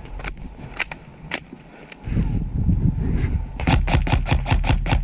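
ASG Scorpion EVO airsoft electric gun firing: a few single shots, then from about three and a half seconds in a rapid string of shots at about seven a second. A low rumble of handling noise runs under the shots from about two seconds in.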